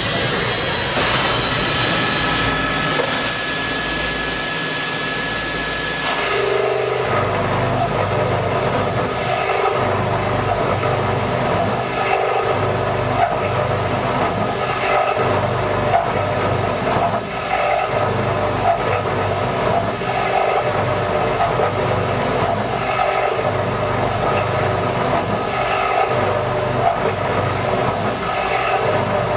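CNC beam drilling machine running, a loud continuous mechanical noise. About six seconds in, a steady high whine stops and a rougher, fuller noise takes over, with a low hum that swells and drops irregularly.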